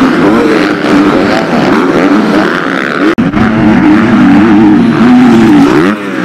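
MX2 motocross bike engines racing, revving up and down as the riders work the throttle and gears, the pitch rising and falling again and again. The sound drops out sharply for an instant about three seconds in.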